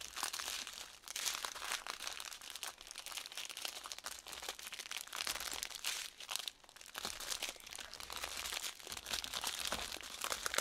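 Small plastic bags of resin diamond-painting drills crinkling and rustling as they are handled and laid out, with many light clicks and taps throughout.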